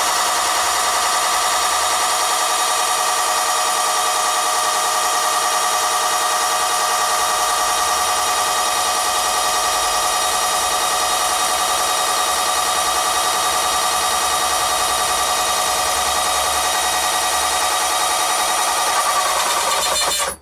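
Small electric motor driving a model boiler feed pump, running with a steady whine as it pumps water into a gauge tube, building the pressure past 300 psi. It cuts off suddenly at the end.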